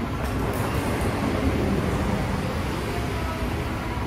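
Steady low rumble and hiss of an airport terminal concourse.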